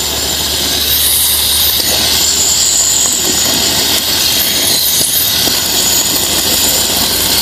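Raw chicken pieces sizzling in hot oil in an aluminium kadai, a loud, steady hiss with fine crackle.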